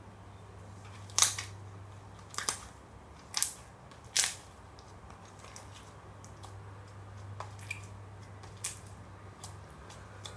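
Clear water slime being squeezed and pressed by hand on a plastic mat, giving sharp wet pops and snaps: four loud ones in the first half, then a few fainter ones.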